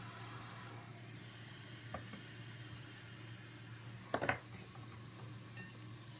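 A few light clinks and taps of hard objects, such as a metal tool and glass, against a steady faint hum. One comes about two seconds in, the loudest cluster about four seconds in, and a last one near the end.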